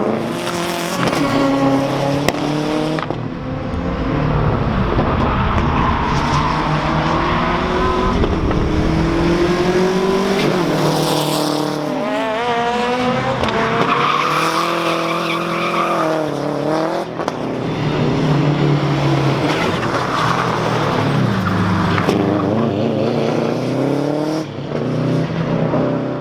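Subaru Impreza 555 Group A rally car's turbocharged flat-four engine driven hard, its pitch repeatedly rising under acceleration and dropping at gear changes and lifts.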